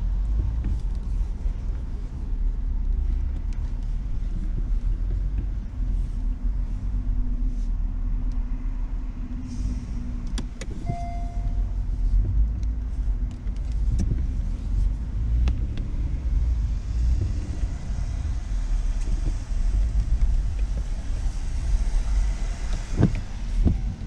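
Road noise inside a moving car: a steady low rumble of engine and tyres, with a few scattered clicks and a brief beep-like tone about eleven seconds in.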